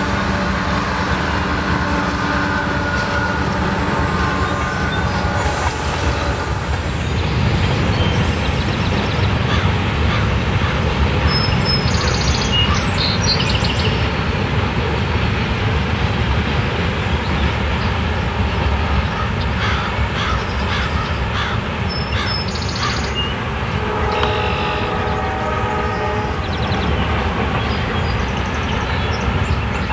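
A train passing close by: a steady, heavy rumble of wheels on rails that lasts throughout. Steady tones stand out near the start and again about 24 seconds in, and brief high squeals come twice in the middle.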